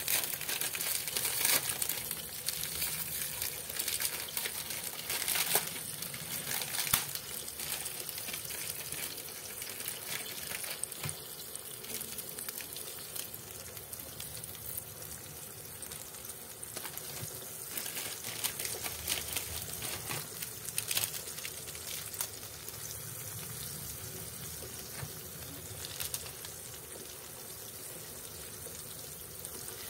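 A pot of pork and Maggi noodle broth bubbling and sizzling, with a dense crackle. It is louder and busier in the first several seconds, then settles to a steadier hiss.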